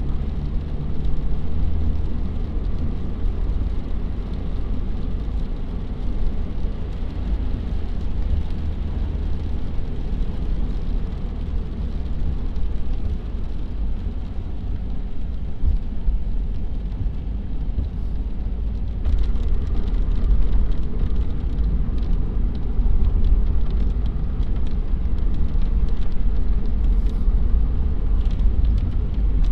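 Car driving on a wet road, heard from inside the cabin: a steady low rumble of engine and tyres under a hiss. About two-thirds of the way through the hiss grows brighter and louder, with scattered light ticks.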